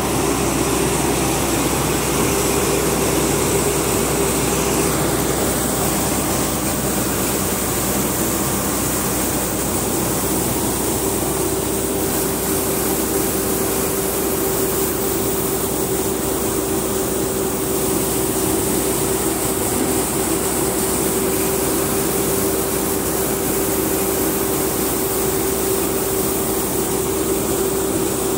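Chunyu combine harvester running steadily at working speed while its unloading auger pours grain onto a pile, with a constant whine over the engine noise.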